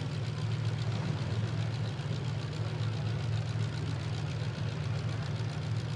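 Demolition derby car engines idling, a steady low hum with no revving.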